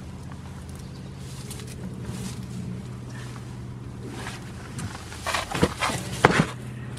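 Close-up knocks and scrapes against the camera as a goat pushes against it and tips it over: a cluster of sharp, loud bumps about five to six and a half seconds in, over a steady low hum.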